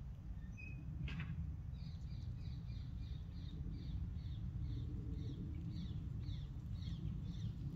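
A small bird sings a long run of short, high, down-slurred notes, about three a second, over a steady low rumble, with a single click about a second in.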